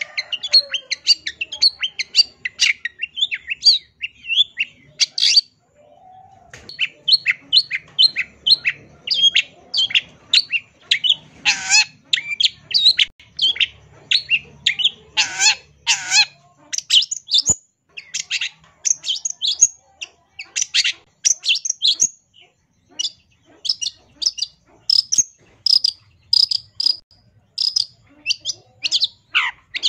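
Long-tailed shrike (cendet) singing a fast, varied run of short chirping notes full of mimicked phrases. There is a pause of about a second roughly five and a half seconds in, and a few louder downward-sweeping notes near twelve and sixteen seconds.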